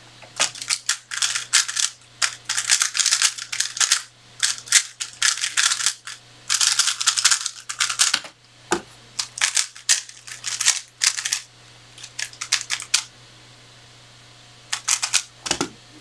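3x3 speed cube being turned fast by hand: rapid bursts of plastic layer clicks and clacks with short breaks between them, thinning out after about thirteen seconds, then one more brief flurry near the end.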